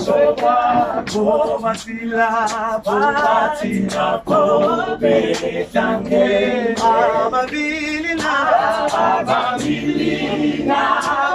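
A group of voices singing together unaccompanied, with hand claps keeping time.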